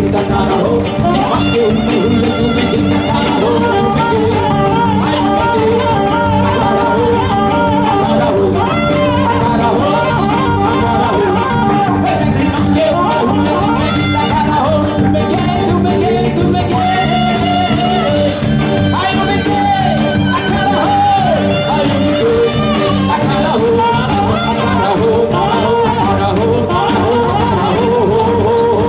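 Live band playing upbeat Jewish wedding music: a saxophone plays the melody over drum kit and bass guitar, with a man singing into a microphone.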